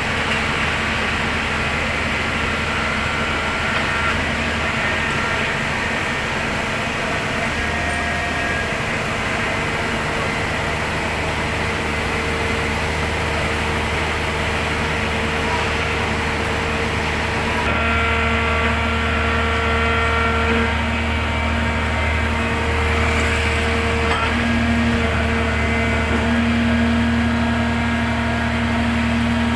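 Engine of a hydraulic pile-driving machine running steadily under load, a low rumble with held whining tones that change pitch and grow stronger about two-thirds of the way through.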